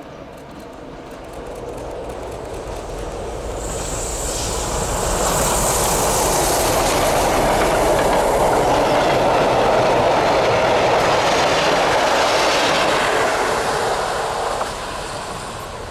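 A train hauled by a PKP SU45 diesel locomotive passing by. It grows louder over the first five seconds, is loudest for about eight seconds, then falls away near the end.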